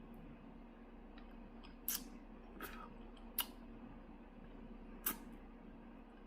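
Close-up mouth sounds of someone eating chicken feet: a few sharp smacking and sucking clicks at uneven intervals, over a faint steady hum.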